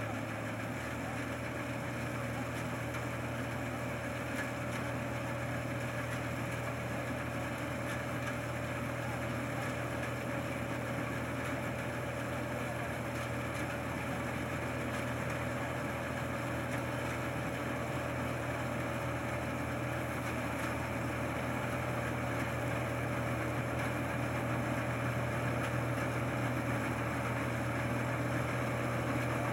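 Rice combine harvester's engine running steadily, a constant drone that holds the same pitch and grows slightly louder near the end.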